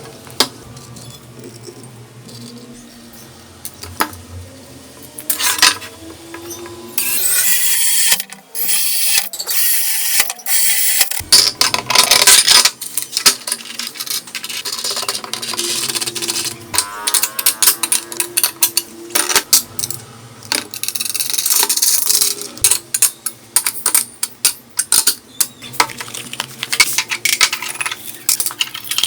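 Metal tool work on a fridge compressor: many sharp clinks and knocks of metal on metal, with a few long stretches of loud rushing noise.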